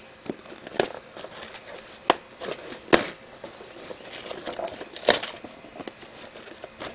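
Cardboard shipping box being opened by hand: packing tape picked at and torn, and the flaps scraped and pulled open, with crinkling and three sharp snaps about two, three and five seconds in.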